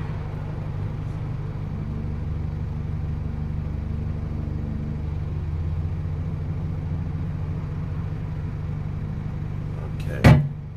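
Steady low engine hum, like a vehicle idling, with one sharp knock about ten seconds in.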